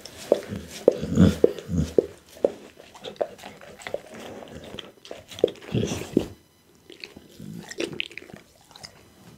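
Pit bull licking up and chewing scraps of raw boar meat close to a microphone: a quick run of wet smacks and clicks from tongue and jaws, thick for the first six seconds, then only a few.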